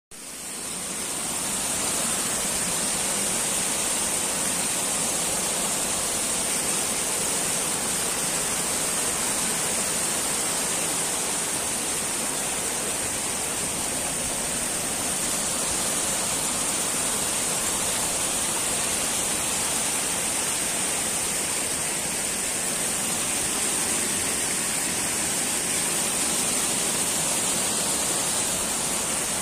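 Muddy floodwater rushing over a submerged road and spilling off its edge in a steady, unbroken rush, fading in over the first second or two.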